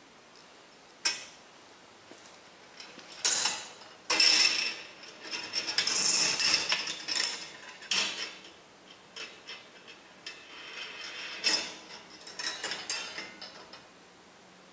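A ball running through a bent steel-wire marble-run sculpture, rattling and clinking along the wire tracks with sharp metallic clicks as it drops between sections. The rattling is loudest early in the run and stops about a second before the end.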